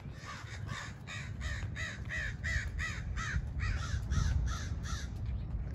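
A bird giving a rapid series of about fourteen short harsh calls, close to three a second, stopping about five seconds in.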